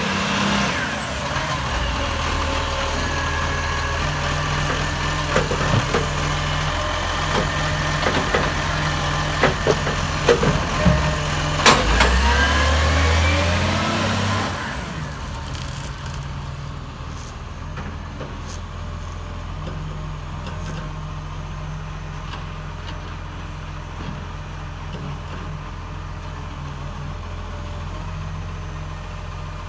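Side-loader garbage truck's hydraulic lifting arm picking up and emptying a wheelie bin: the hydraulics whine and glide up and down in pitch over the diesel engine, with a run of knocks and one sharp bang about twelve seconds in as the bin is tipped and shaken out. After about fifteen seconds the hydraulics stop and only the truck's diesel engine is left, running steadily.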